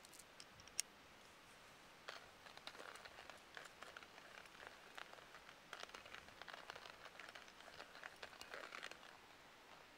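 A few sharp clicks as coffee beans drop into a stainless-steel hand coffee grinder, then the grinder cranked by hand, crunching the beans in a dense, irregular crackle that starts about two seconds in and stops about a second before the end.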